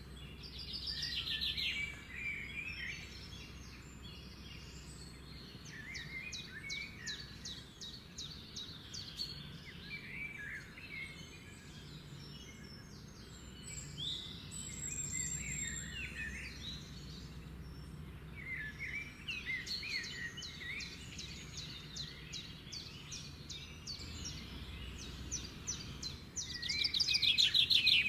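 Pet lovebirds chirping and chattering, in short rapid trills and squeaky calls, with a louder burst of fast chatter near the end.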